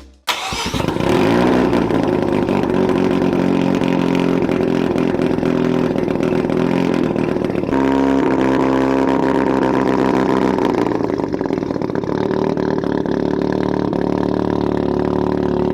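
Car engine revving up, then held at high, nearly steady revs, with a sudden change of pitch about eight seconds in.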